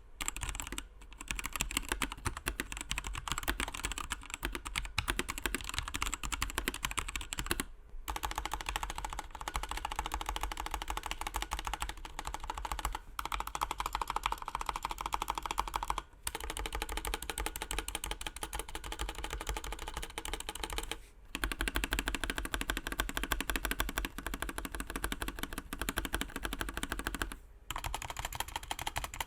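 Typing on a Patriot Viper V765 mechanical keyboard with Kailh BOX Red linear switches: a dense, rapid run of keystroke clicks, broken by a few brief pauses.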